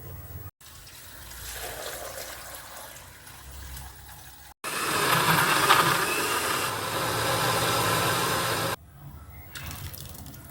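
Running water in short clips cut together. The loudest is a steady stretch of about four seconds in the middle.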